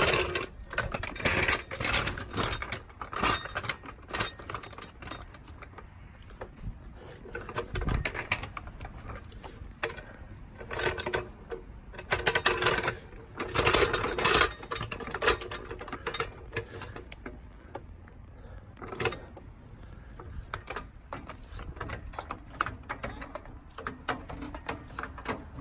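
Jack being worked to raise the vehicle, with repeated irregular metallic clicking and clattering.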